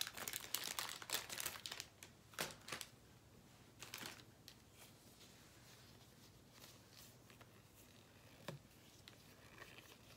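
Balloon package crinkling as it is torn open for about the first two seconds, then a latex balloon handled and stretched between the fingers, with a few scattered soft rustles and clicks.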